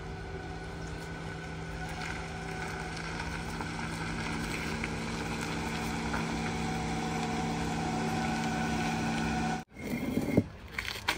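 Toyota RAV4 running with a steady, even hum as it pulls slowly forward into the campsite. Near the end, after a cut, a few sharp knocks come as something is wedged under the front wheel to level the car.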